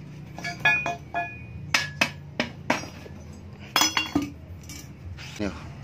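Irregular metal clanks and clinks, each with a short ring, about a dozen in all: a metal filter tube knocking against the emptied silencer canister of a Yamaha NMAX exhaust as it is worked into place.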